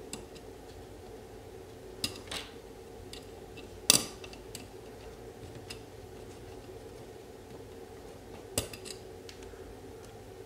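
A few sharp metal clicks and clinks as a wall outlet's strap and mounting screw knock against an old metal electrical box, the loudest about four seconds in. The box's screw holes are stripped, so the screw will not bite.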